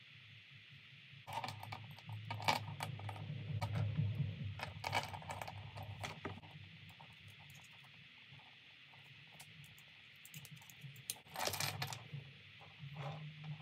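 Steel chain links clinking and rattling as the chain is handled: scattered small metallic clicks through the first half, with a louder rattle a couple of seconds before the end.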